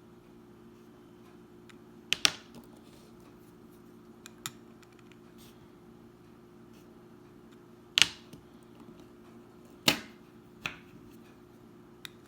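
Sharp little clicks and taps at irregular intervals of a few seconds, from .22LR cartridges being handled and set down while they are weighed and sorted. The loudest are a double click about two seconds in and single clicks around eight and ten seconds in, over a faint steady hum.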